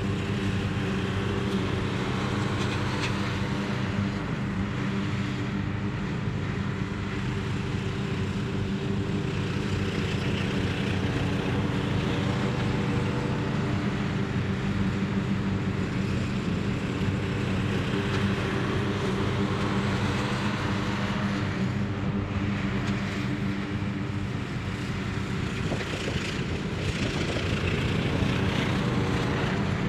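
Two riding lawn mowers, an MTD and a Craftsman, running steadily as they cut grass: an even engine drone that grows a little louder near the end as one mower passes close.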